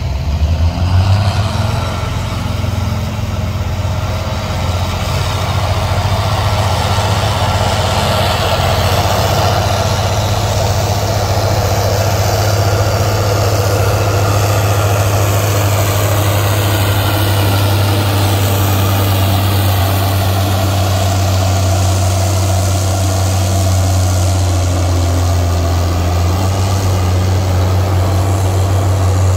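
Case IH Steiger 480's 15-litre Cummins diesel revving up in the first second, then running steadily at full power under load as the tractor pulls the weight-transfer sled.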